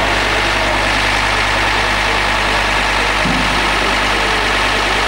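Recovery truck's engine idling steadily while it powers the truck's loader crane.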